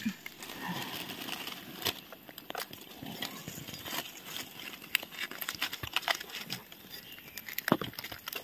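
Dry leaf litter rustling and crackling, with scattered sharp snaps and ticks.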